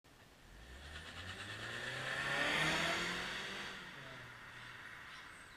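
A car driving along an asphalt street and passing by: engine hum and tyre noise swell to a peak about two and a half seconds in, then fade away.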